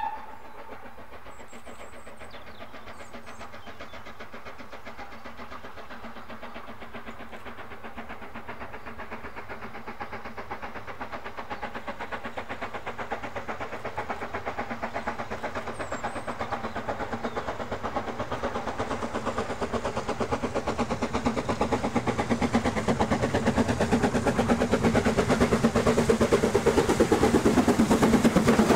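BR Standard Class 9F 2-10-0 steam locomotive 92214 under steam, its two-cylinder exhaust beating rapidly and evenly. The beats grow steadily louder as it approaches and comes close by near the end.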